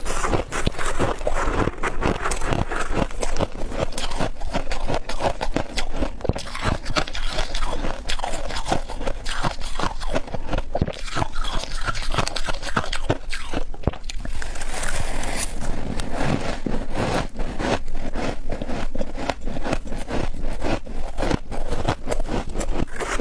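Humidifier frost being scraped up and bitten, with a dense, continuous run of squeaky crunches and scraping.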